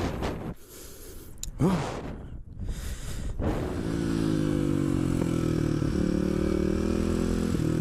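Kawasaki KLX250SF's single-cylinder engine comes in about three and a half seconds in and then runs steadily at idle. Before that there are scattered scuffs and clicks, a short rising whine and a brief near-silent gap.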